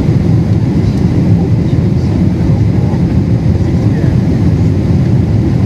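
Cabin noise of a Boeing 777-300ER on final approach with flaps extended: the steady, loud low rumble of its GE90 engines and the airflow, heard from inside the cabin.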